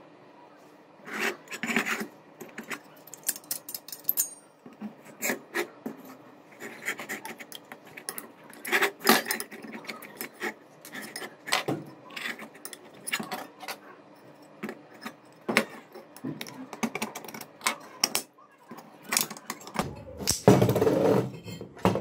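Metal parts of a disassembled microwave-oven magnetron being handled on a workbench: a string of clicks, taps and light scrapes, with a longer, louder scrape near the end as the steel housing is set down.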